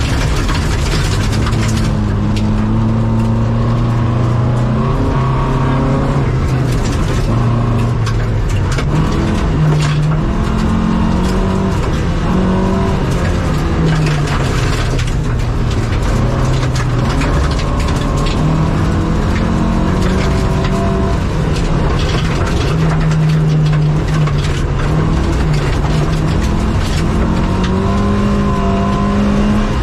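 Opel Rallye Kadett rally car's four-cylinder engine heard from inside the cabin, revving hard, its pitch climbing and then dropping back again and again with gear changes and lifts. Gravel and bumps knock against the body.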